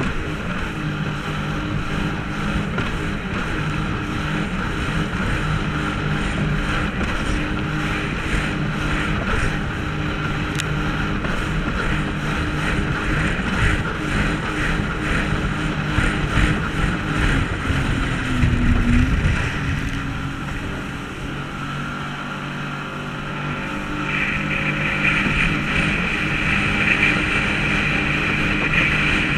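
Sea-Doo jet ski's engine running at speed, with water spray and wind rushing over the camera. About two-thirds of the way through, the engine note drops and eases off for a few seconds, then picks back up with a brighter, higher sound toward the end.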